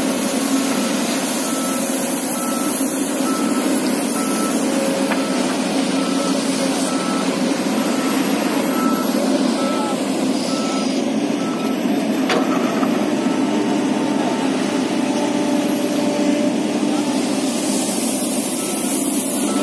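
Excavator engine running steadily, with its warning alarm beeping in an even series of short tones. The beeps stop about two-thirds of the way through and start again near the end.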